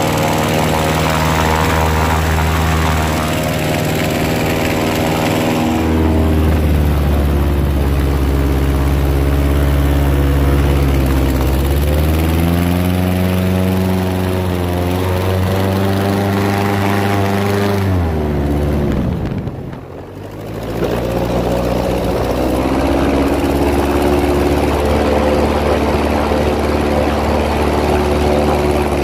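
Airboat engine and propeller running at speed. The pitch climbs about twelve seconds in, drops and quietens briefly as the throttle is eased around twenty seconds in, then builds back up and holds.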